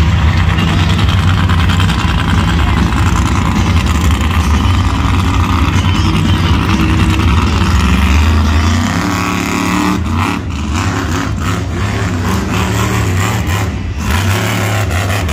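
Monster truck engine running loud, steady for the first eight seconds or so, then more uneven for the rest.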